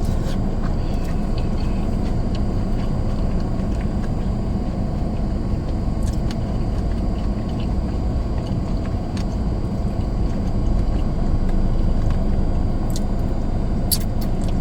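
Steady low rumble of a car heard from inside the cabin, with a few faint, sharp clicks of someone eating scattered through it.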